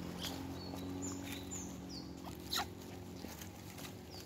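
Faint, short high chirps and squeaks from animals, with one louder squeak about halfway through, over a steady low hum.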